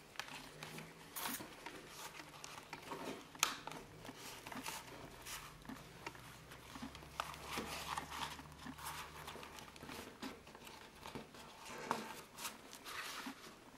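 Faint rustling, scraping and small clicks of a black cloth planner cover being handled and slid onto a notebook in a clear plastic cover, with the plastic crinkling now and then.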